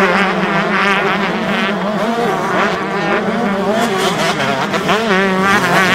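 Several motocross bikes' engines revving together, the pitch rising and falling as the riders throttle on and off.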